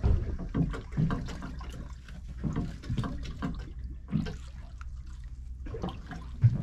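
Sea water sloshing and splashing against a small boat's hull in irregular short splashes, over a low steady hum.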